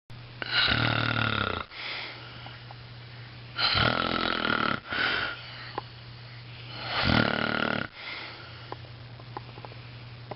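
A man snoring: three long, loud snores about three seconds apart, each lasting about a second, with much quieter breathing between them.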